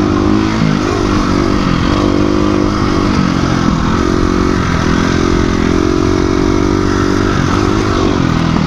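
Dirt bike engine running at high revs under load. The pitch dips and comes back up several times as the throttle is rolled off and on.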